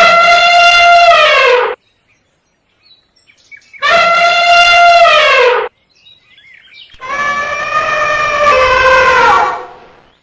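Elephant trumpeting: three loud calls of about two seconds each, separated by silent gaps. Each call drops in pitch at the end. The third call is steadier and fades out more slowly.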